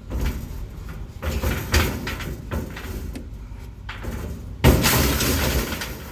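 A run of knocks and scrapes, with a loud bang about four and a half seconds in followed by about a second of clatter.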